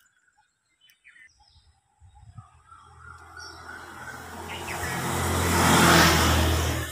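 A motor vehicle passing by: its engine hum and noise build steadily over a few seconds, are loudest about six seconds in, then fade quickly. Faint bird chirps come before it.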